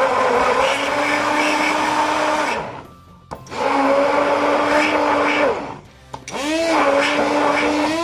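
Stick blender running in a plastic cup of strawberries and milk, blending a smoothie. The motor hums at a steady pitch, stops twice for about a second, and winds up in pitch when switched back on near the end.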